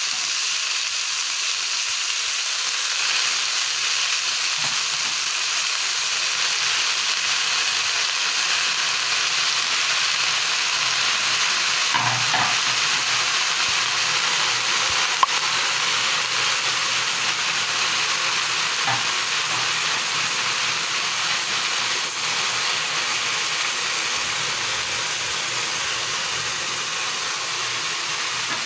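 Leafy greens sizzling steadily in a hot wok as they wilt, with a few faint clicks now and then.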